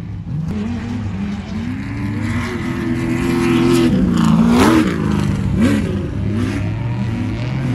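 Off-road racing buggy engine revving hard as it accelerates along a dirt course, its pitch climbing and dropping with each throttle change, loudest as a vehicle passes close about four and a half seconds in.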